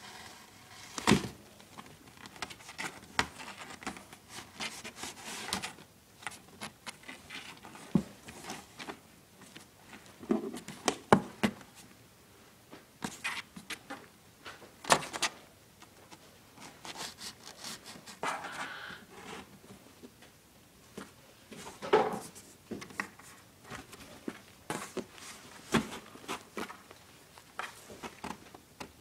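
A kitten scrambling and pawing inside a cardboard box: irregular scratches and taps on the cardboard, with a few louder knocks.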